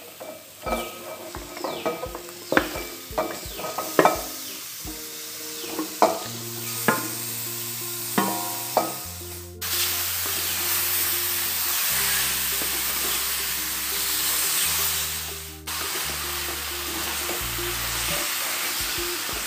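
Raw chicken pieces tipped into a hot metal pot of fried masala, with a string of sharp knocks and clatters, then loud sizzling in oil as they are stirred with a wooden spatula. Background music with a low bass line plays underneath.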